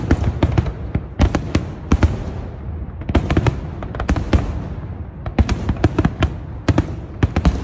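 Aerial fireworks bursting in a rapid, irregular string of sharp bangs, several close together in clusters.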